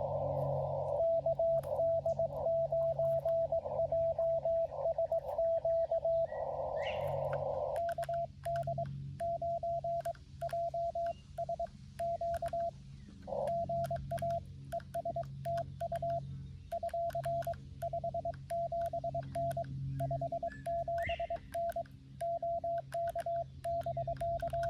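Morse code (CW) from a Xiegu G90 ham radio transceiver: a single steady tone keyed on and off in dots and dashes during a contact exchange. It is louder and almost continuous for the first eight seconds, then fainter and broken by short pauses.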